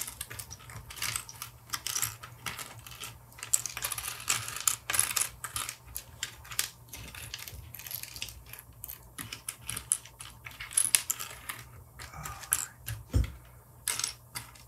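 Small hard 3D-printed plastic crown parts clicking and clattering on a table as they are picked through, sorted and set down, in irregular quick clicks.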